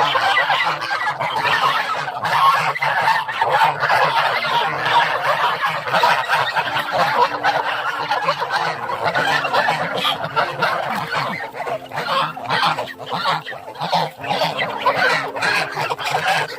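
A flock of month-old Lion-head goslings calling all together in a dense, continuous chorus of honks and peeps.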